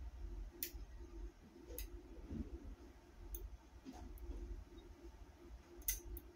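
Faint, irregularly spaced clicks of a Lishi 2-in-1 pick working a binding wafer inside a GM 10-cut car door lock, with about four sharper clicks over a low hum.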